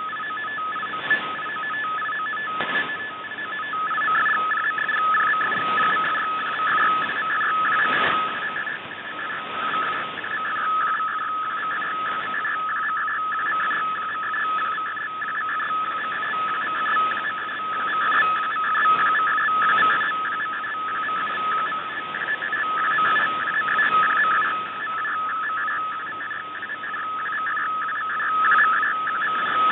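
A shortwave digital picture transmission received over the radio: a steady warbling data signal held between two bright edge tones as a colour image is sent line by line. It runs over shortwave hiss and static crackles, and its loudness wavers with fading.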